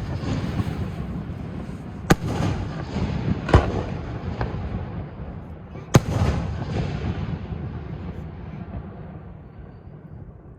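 Aerial fireworks shells bursting: three sharp bangs about 2, 3.5 and 6 seconds in, over a continuous low rumble of echoing reports and crackle that slowly fades away near the end.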